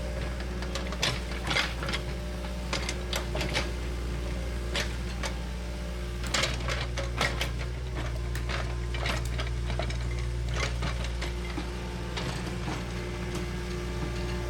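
Bulldozer's diesel engine running steadily, with irregular metallic clanks and clicks over it from the machine at work.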